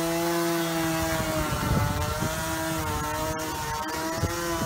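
Home-built robot lawnmower running, its electric motor giving a steady whine that wavers a little in pitch, over an even hiss.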